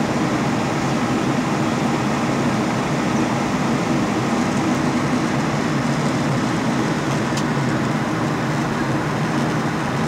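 Steady cabin noise of a jet airliner in cruise: an even drone of engines and rushing air heard from inside the cabin, with a faint low hum running through it.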